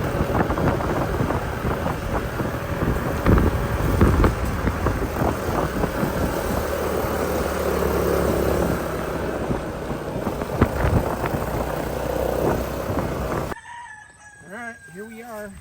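A vehicle running along a rough road, with wind on the microphone and a few sharp knocks. Near the end it cuts to a quieter spot where a rooster crows once.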